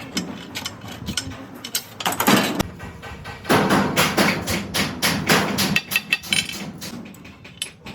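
Hand tool work: a series of sharp hammer knocks, with longer stretches of noise about two seconds in and again from about three and a half to six seconds.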